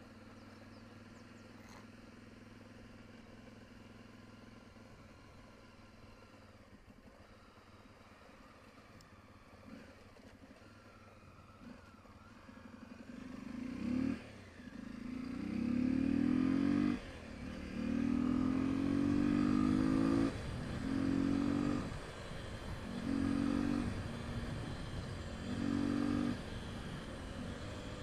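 Honda XR 250 Tornado's single-cylinder engine, heard from the rider's seat. It runs quietly at low revs for the first half, then the bike accelerates hard, with the revs climbing and dropping twice, then rising and cutting in a run of short throttle surges about every two to three seconds.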